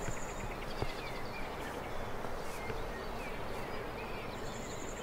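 Super Puma helicopter passing over, heard as a low steady drone, with small birds chirping over it.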